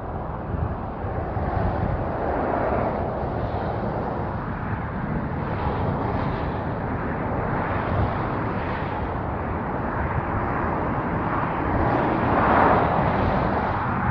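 The 1995 International 4800's six-cylinder diesel engine running, a steady rumble that holds its level throughout.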